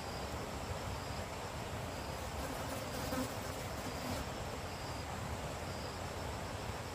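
Forest insects buzzing steadily in a high, thin drone, with short chirps repeating about once a second, over a low steady rumble.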